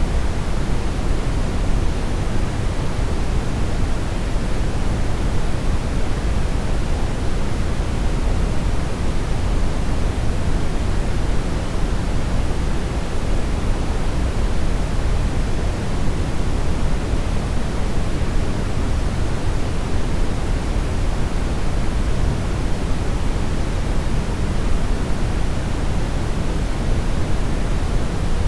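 Steady brown noise: a constant, even rumbling hiss, strongest in the deep bass and falling away toward the treble, with no change in level.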